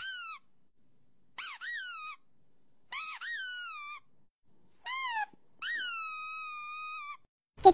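Golden retriever puppy whining in a series of five high-pitched calls, each rising then falling. The last call is longer and held steady, like a small howl.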